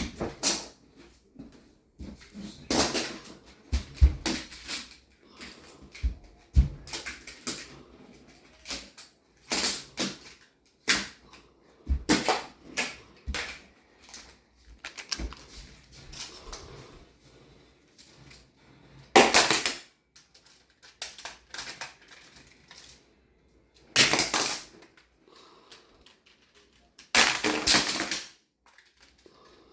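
Plastic magnetic building tiles clattering: thrown tiles strike tile buildings and knock pieces onto the floor in many separate clacks. There are several longer, louder collapses of clattering tiles in the second half.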